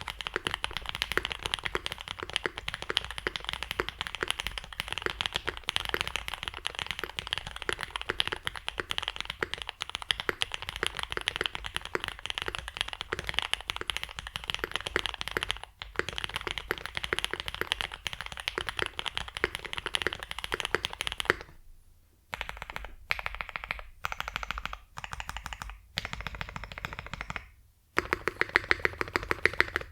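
Fast typing on a Mode 80 mechanical keyboard with lubed Alpacas V2 linear switches on an aluminium plate and GMK keycaps: a dense, steady run of key clicks, then shorter bursts broken by brief pauses in the second half.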